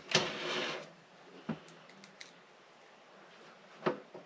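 Sheet-metal lid of an NVR recorder scraping for just under a second as it is pushed into place on the case, followed by a sharp click, a couple of faint ticks and a knock from a screwdriver and hands handling the metal case.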